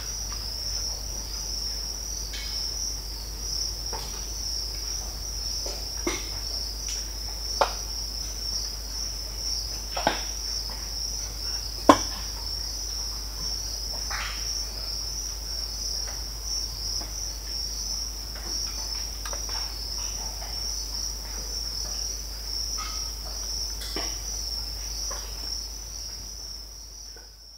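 Mangrove swamp ambience: a steady, high-pitched cricket chorus with scattered crackling, snapping and popping from the mangrove trees, the loudest snap about twelve seconds in. The whole fades out near the end.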